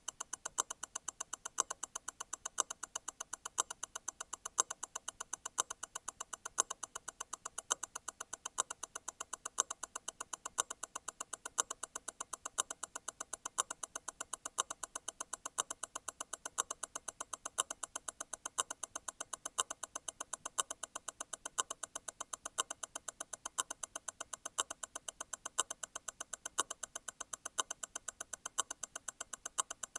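Grand Seiko T0 Constant-force Tourbillon hand-wound movement ticking at 28,800 vibrations per hour, a quick even run of beats, with a louder click about once a second. That accent is the constant-force stop wheel letting go and catching again once every eight beats.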